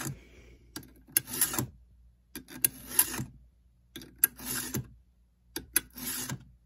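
Round chainsaw file in a bar-mounted filing guide rasping across the cutter teeth of a Stihl MS290 Farm Boss chain as it is sharpened. There are four even push strokes about every second and a half, with short clicks between the strokes.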